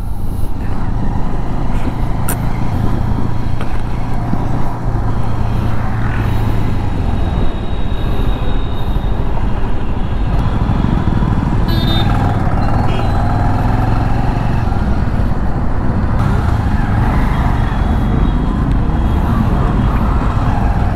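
Bajaj Avenger 220's single-cylinder engine running steadily while riding in traffic, heard from on board with road noise. There is a brief high tone about twelve seconds in.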